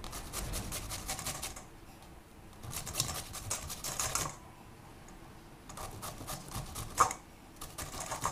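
Raw green mango being grated on a stainless steel hand grater over a steel plate: quick rasping strokes in three spells with short pauses between. One sharp knock near the end is the loudest moment.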